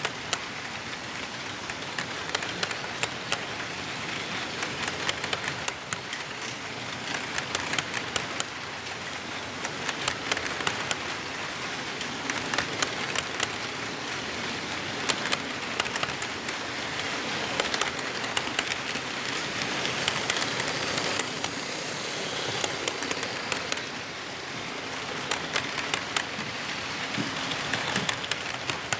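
Model train locomotive running on layout track: a steady rolling hiss with many irregular sharp clicks and rattles from the metal wheels on the rails.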